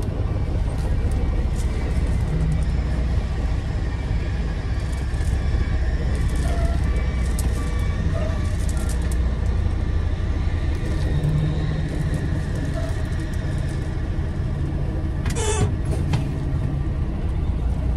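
A tractor-trailer's engine running inside the cab, a steady low rumble. A brief high-pitched squeak stands out about fifteen seconds in.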